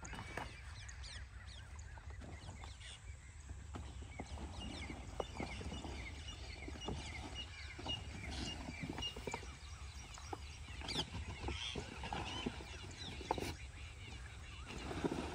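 Rustling and scattered knocks from handling a flat plastic irrigation pipe as it is laid out and fitted, over a steady low rumble, with birds chirping.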